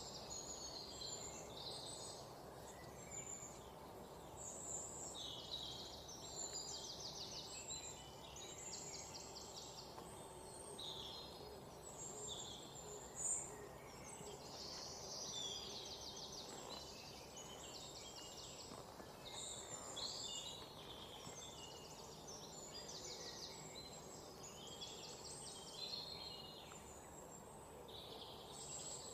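Several birds singing and chirping, with short fast trills repeated every second or two, high in pitch, over a steady soft background hiss. One sharp click about thirteen seconds in.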